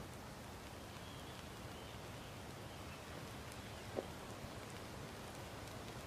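Fuel-soaked wicks burning faintly as an even hiss, with one sharp pop about four seconds in.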